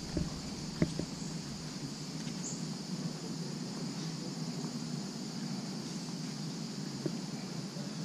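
Steady insect chorus, an even high-pitched hum, over a soft low background rumble, with a couple of faint clicks.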